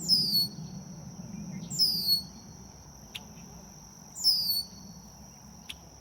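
A bird calling: a short, high, falling call repeated three times, about two seconds apart, over a steady high-pitched insect drone.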